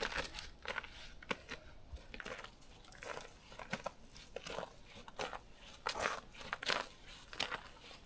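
Footsteps crunching on a snow-covered trail: an uneven run of short crunches, a few a second, with the odd sharper click.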